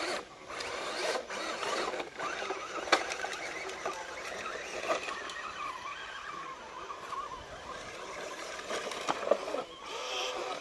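Electric motor and gear drive of a scale RC crawler truck whining, wavering up and down in pitch as it is driven, with a few sharp clicks and knocks.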